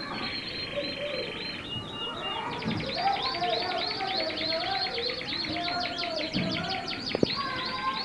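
Roller canary singing: a fast rolling trill, then a long run of quick repeated rising notes, with one sharp click near the end.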